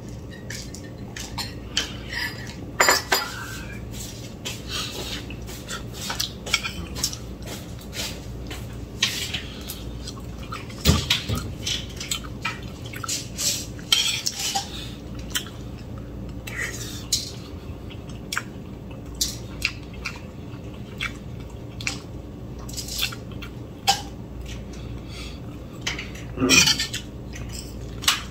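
Metal fork and spoon clinking and scraping on a ceramic plate during a meal: many light, irregular clicks, with a few louder knocks.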